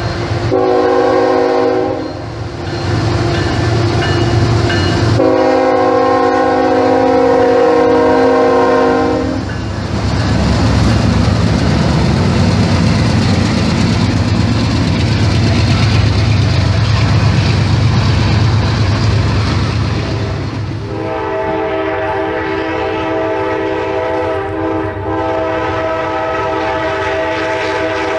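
Diesel locomotive air horn sounding two blasts, a short one then a longer one, followed by the rumble of the diesel engine and freight train passing close by. From about three-quarters of the way through, a train horn holds a long steady chord.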